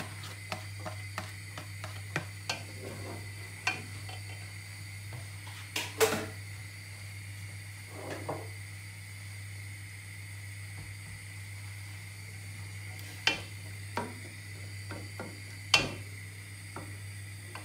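Chopped onions going into hot oil in a large pot and frying with a faint sizzle. Small clicks come as the onions are scraped off the board early on, and the stirring spoon knocks sharply against the pot a few times, loudest about six seconds in and near the end, over a steady low hum.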